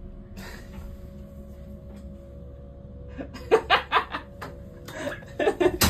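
Steady electrical hum inside a tram's driver's cab, broken about three seconds in by a short burst of laughter, which starts again near the end.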